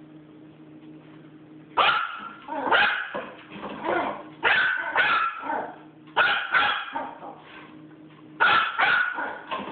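Small dog barking in short, sharp barks, about nine of them in quick pairs and threes starting about two seconds in.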